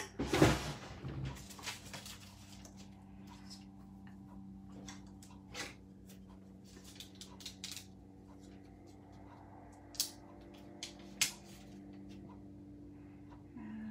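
Craft-table handling noises as a glue dot is taken from its roll of backing paper and a ribbon bow is pressed onto a card: paper rustling with scattered small clicks and taps, a louder rustle about half a second in and two sharp clicks near the end, over a faint steady hum.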